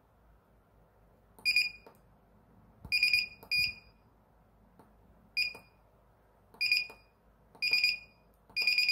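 Spot welder control board's buzzer giving seven short, high-pitched beeps at irregular intervals, one for each press of its button as the weld delay time is stepped through.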